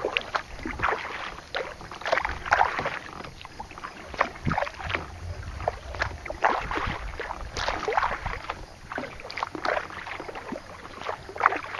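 Kayak paddle dipping and pulling through the water, with irregular splashes and drips several times a second.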